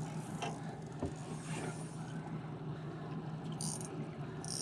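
Yamaha outboard motor idling with a steady low hum. A high hiss comes in briefly about three and a half seconds in and again near the end.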